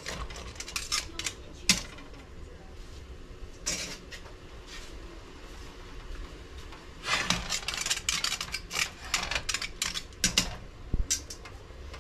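Metal kitchen tongs clinking and scraping against a cooking pot and hard crab shells as crabs are handled in the pot, in uneven bursts of clatter: one through the first couple of seconds, a short one around four seconds, and a longer run for several seconds past the middle.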